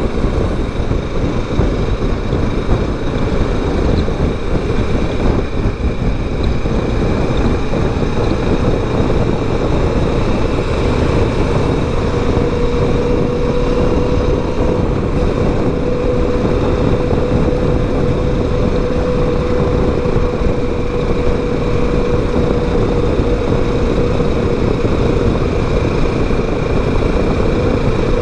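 Wind rushing over a helmet-mounted microphone, mixed with a 2018 Kawasaki Versys 650's parallel-twin engine at a steady highway cruise. A steady hum comes in about halfway through and holds for several seconds.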